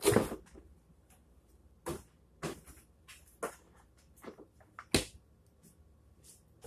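A series of short knocks, clicks and clunks from household objects being handled and set down, the loudest right at the start and another about five seconds in.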